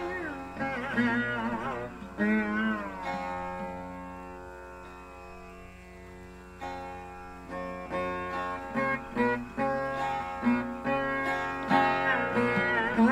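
Indian classical instrumental music: a plucked string instrument plays ornamented phrases with bending notes over a steady drone. The playing fades to a soft sustained passage, then plucked notes start up again about six or seven seconds in.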